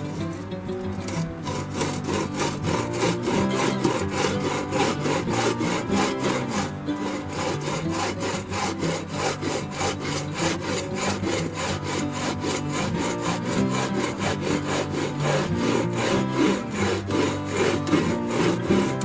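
Hand saw cutting through wood in rapid, even back-and-forth strokes.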